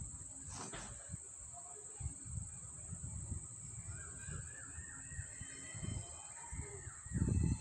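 A bird calling in a quick run of repeated short notes through the second half, over a steady high-pitched whine and low dull thumps. The loudest thump comes near the end.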